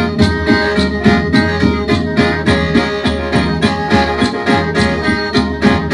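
Traditional Isan ritual music: a khaen (bamboo free-reed mouth organ) playing a melody over steady drone notes, with a regular percussion beat a few times a second.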